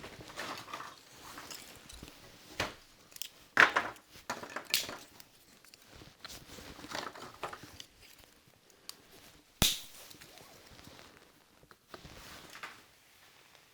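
Irregular knocks, crunches and rustles of something being handled or stepped on. The strongest knocks come about three and a half and five seconds in, and a single sharp click comes near ten seconds.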